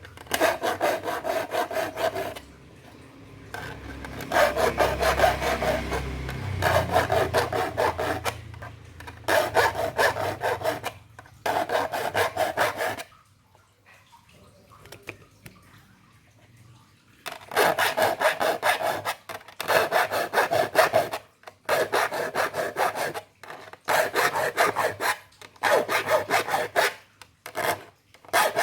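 Metal file rasping across the teeth of a hand saw as they are sharpened. Quick strokes come in runs of a few seconds, with short breaks between and a longer pause about halfway through.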